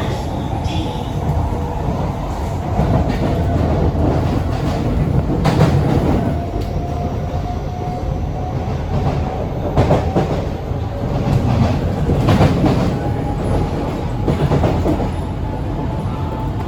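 C151B metro train running, heard from inside the car: a steady low rumble of wheels on rail, knocked through by a few sharp clacks. A faint motor whine climbs slowly in pitch as the train gathers speed.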